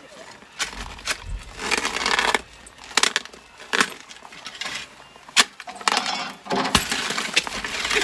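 A shovel scraping and chipping at a crusted, icy snow pile: several rasping scrapes with sharp clinks and knocks as the blade strikes the ice.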